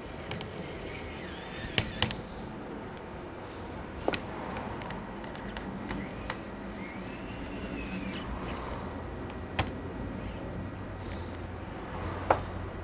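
Sharp clicks and taps of an electric precision screwdriver and small screws against a laptop's metal chassis, about five in all, with a faint whir in between that rises and falls in pitch.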